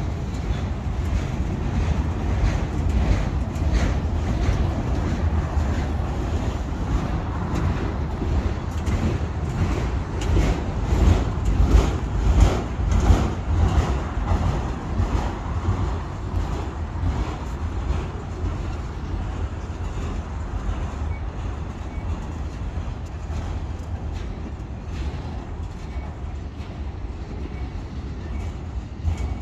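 Norfolk Southern freight train's autorack cars rolling past: a steady low rumble of steel wheels on rail, with a run of wheel clacks from about eight to sixteen seconds in, where it is loudest.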